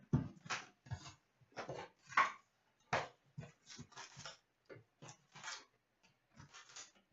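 A hockey card hobby box being opened by hand: irregular crinkles and rustles of plastic wrap and cardboard, a few dozen short crackles with small gaps between them.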